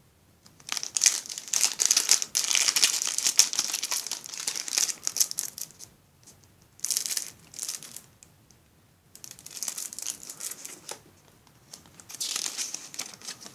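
Clear plastic zip bags crinkling as they are handled, in four bursts with short quiet gaps between them.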